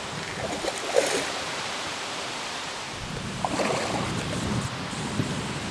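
Hooked common carp splashing at the surface of the water close to the bank while being played on a pole, with louder splashes about a second in and again past the middle.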